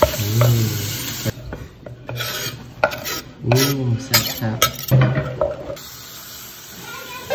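Wet chili-lime sauce stirred and scraped in a clay mortar with a wooden pestle and a metal spoon, with scattered sharp knocks of the utensils against the clay. It grows quieter and steadier after about five and a half seconds.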